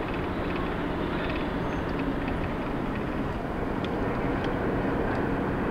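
Steady engine and road noise heard from inside a moving car's cabin.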